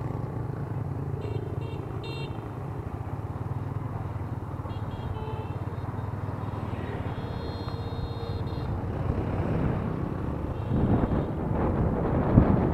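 Yamaha Exciter 150's single-cylinder four-stroke engine running steadily while the bike rides through traffic. Wind noise on the microphone grows louder near the end as the bike speeds up.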